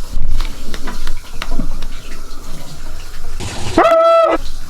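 Tap running into a sink, with splashing as the face masks are washed off. About four seconds in there is a brief, loud, high-pitched held sound.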